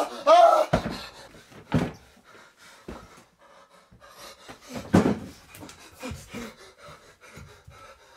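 A man panting heavily after waking with a start, short ragged breaths, the loudest about five seconds in, with the rustle of bedclothes being thrown off. In the first second a rhythmic shouted chant breaks off abruptly.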